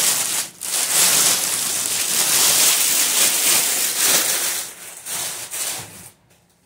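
Thin plastic wrapping rustling and crinkling loudly as it is pulled off a padded carry case and bunched up. It tapers into a few short rustles and stops about six seconds in.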